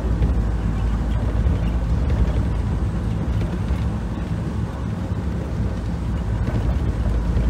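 Cabin noise of an airport people-mover tram travelling at speed: a steady low rumble of the car running along its guideway.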